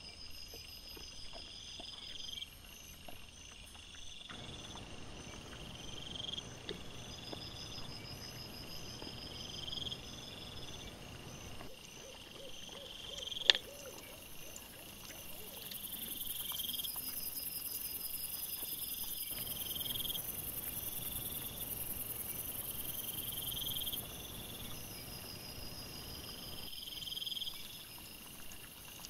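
Crickets chirping at night in a steady repeating pattern, with a second, higher-pitched insect trilling in pulses. A sharp click comes about halfway through, and a low rustling comes and goes underneath.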